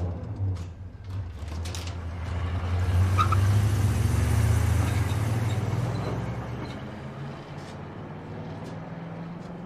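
A car engine running with a low, steady hum that grows louder a few seconds in, then slowly fades away.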